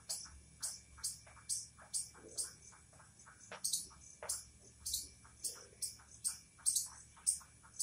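Chalk tapping and scratching on a blackboard as a row of short tick marks is drawn, a quick regular run of sharp taps at about two or three a second.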